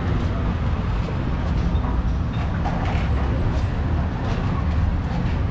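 Steady low rumble of outdoor background noise, with a few faint taps of a knife slicing raw meat on a wooden chopping board.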